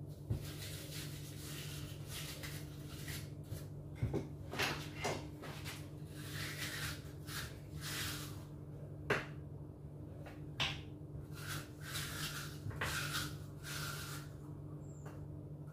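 Small kitchen knife cutting and scraping out the core of an apple on a wooden chopping board, with sharp knocks of the blade on the board now and then. A steady low hum runs underneath.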